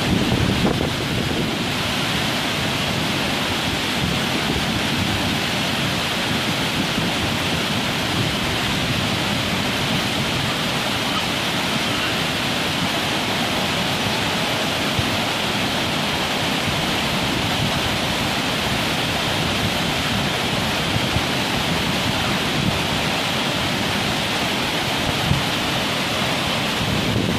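Waterfall's water pouring down in a steady, even rush of noise that does not change.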